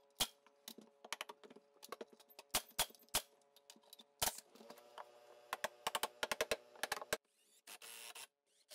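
Pneumatic framing nailer and tools at work on wood blocking between floor joists: a string of sharp clicks and knocks, with a quick run of them a little past halfway and a short hiss near the end.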